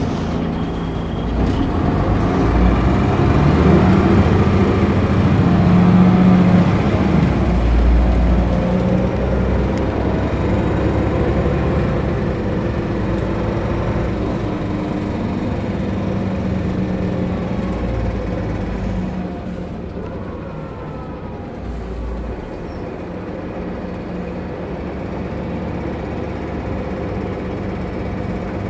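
Interior sound of a 1997 Mercedes-Benz O405 GN2 articulated bus under way: its diesel engine and running gear are loud, swelling for a few seconds about four to seven seconds in and then settling lower.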